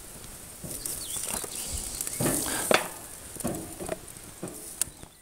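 Pepper pieces being laid by hand on a charcoal barbecue's wire grate: scattered light taps and clicks over a faint sizzle.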